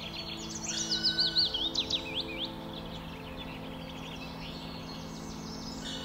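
A songbird sings one quick phrase of high, rapidly sweeping whistled notes, lasting about two seconds near the start, with scattered fainter chirps from other birds around it.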